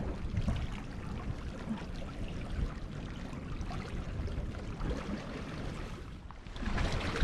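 Steady wash of water with wind rumbling on the microphone; the wind gusts much louder near the end.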